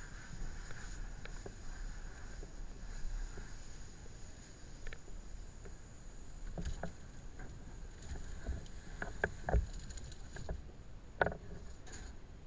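Scattered knocks and clatters over a steady low background noise, most of them in the second half, as fire-damaged debris is moved or stepped through.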